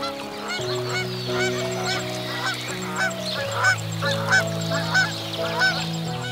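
A rapid series of short honking calls from waterfowl, about a dozen, the loudest in the second half. Background music with sustained chords plays underneath.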